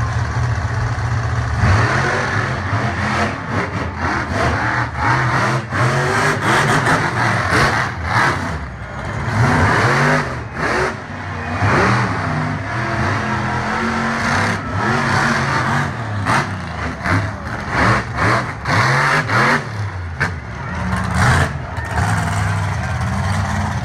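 Monster truck engine revving hard again and again, its pitch repeatedly climbing and dropping back.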